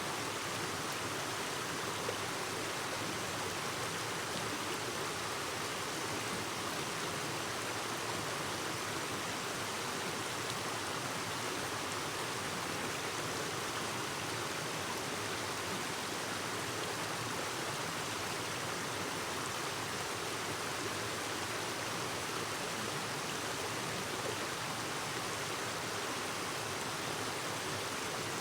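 Clear stream babbling steadily, an even rush of running water with no change in level.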